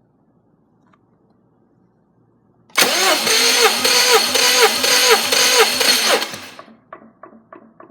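Subaru EJ255 2.5-litre turbocharged flat-four being cranked over by its starter motor for about four seconds, with an even, pulsing rhythm as each cylinder comes up on compression. It stops abruptly, then a faint, quick ticking follows.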